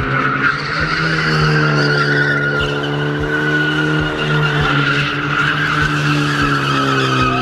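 A car doing donuts: its tyres squeal continuously as it slides around on the pavement, while the engine is held at steady high revs that dip and rise slightly.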